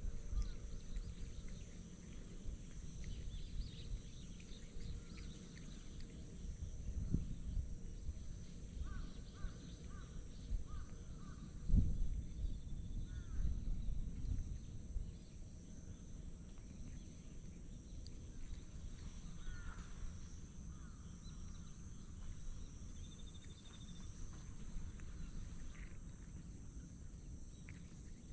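Outdoor ambience: a low rumble with a steady faint high hiss, a few short bird calls, four in quick succession about a third of the way in, and a single dull thump shortly after.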